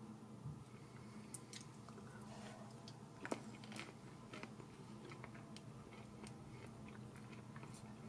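Tiny metal fork and knife clicking and scraping faintly on a small ceramic plate as miniature food is cut and picked up, with one sharper click a little past three seconds, over a low steady hum.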